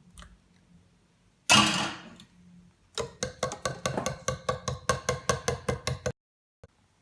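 A utensil beating a mixture in a bowl by hand: a quick, regular run of clinking strokes, about six or seven a second, that stops abruptly. Before it, about a second and a half in, comes a single sudden loud noisy burst that dies away quickly.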